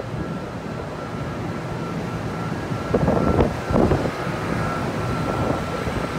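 Electrically powered Marion 8200 dragline excavator running: a steady low machinery drone with a thin high whine held on one pitch, and a couple of louder bursts about halfway through.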